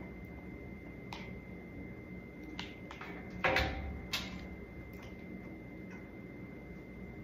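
A few light clicks and crinkles of a paper craft cutout being handled. The loudest is a short crackle about three and a half seconds in, over a faint steady hum.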